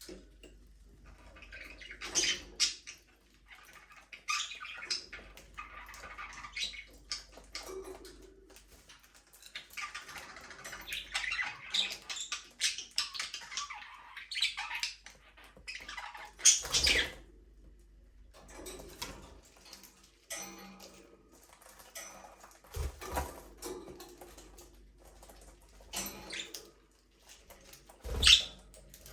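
Budgerigars chirping and chattering continuously in busy, overlapping short calls, with a few louder sharp squawk-like sounds along the way.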